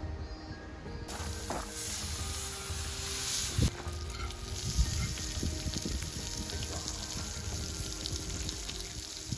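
Horumon (offal) sizzling in an iron frying pan, stirred with chopsticks; the sizzle starts about a second in and holds steady, with a couple of sharp knocks of the chopsticks against the pan near the middle. Background music plays under it.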